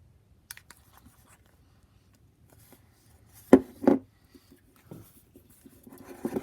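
A utensil mixing slime in a bowl: faint scraping and light clicks, then two loud knocks in quick succession about three and a half seconds in, and busier stirring near the end.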